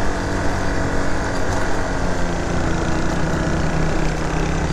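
Motorcycle engine running steadily while riding, with an even rush of wind and road noise.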